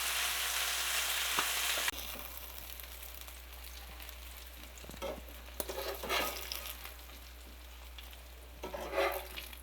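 Floured tilapia pieces sizzling as they fry in butter and olive oil in a pan. The sizzle is loud, then drops off sharply about two seconds in to a much fainter sizzle, with a few short knocks and scrapes later on.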